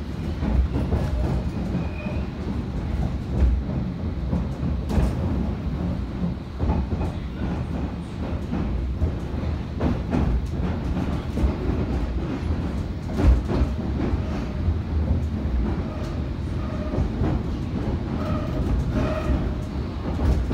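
London Underground train running between stations, heard from inside the carriage: a steady low rumble with scattered clicks and knocks from the wheels over the rails.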